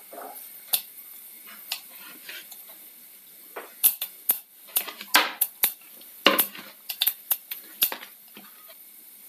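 Mustard seeds popping in hot coconut oil in an earthenware pot, with fenugreek seeds in the oil: about a dozen sharp, irregularly spaced pops over a faint sizzle, the sign that the oil is hot enough for the tempering to be done.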